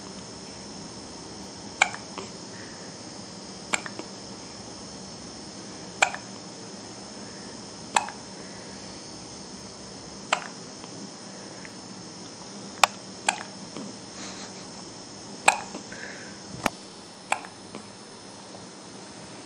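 A baby hiccuping, about ten short, sharp hiccups roughly every two seconds, over a steady faint hiss.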